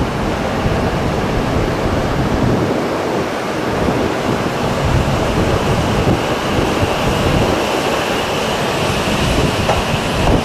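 Steady, loud rumble and rush of a vehicle in motion, with a faint higher whine coming in over the second half.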